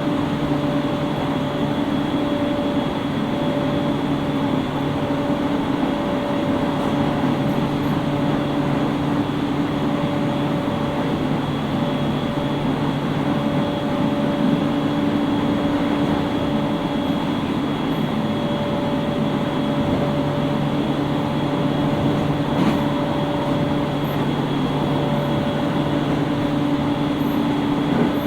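Running sound inside a JR East 701-series 5500-subseries electric train car at steady speed: continuous rumble of wheels on rail with an even hum of several constant tones from the traction equipment.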